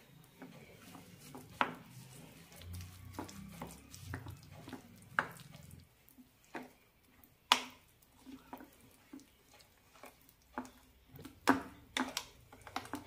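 Metal spoon stirring thick dosa batter in a glass bowl, with wet squelching and irregular clinks as the spoon knocks against the side of the bowl. One clink about halfway through is sharper than the rest.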